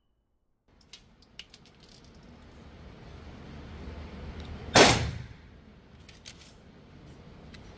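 A few light clicks, then a single 9mm pistol shot about five seconds in, dying away quickly.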